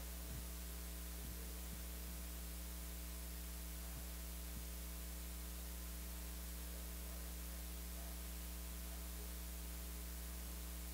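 Steady electrical mains hum with a faint hiss from the microphone and sound system, unchanging throughout.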